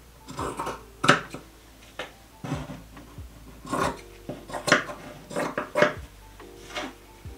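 Scissors snipping through cotton patchwork fabric to trim a ragged edge straight: a series of short, irregular cuts.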